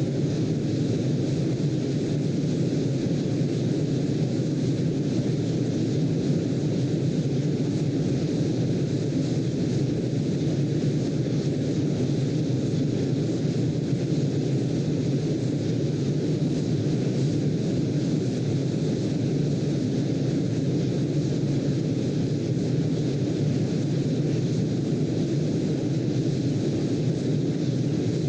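Steady, unchanging low-pitched noise with no swells or breaks: a brown-noise sleep track.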